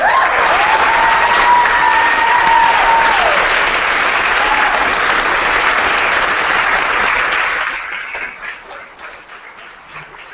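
Crowd applauding, with one long high held cheer over it for the first three seconds that drops in pitch as it ends. The applause dies away about eight seconds in.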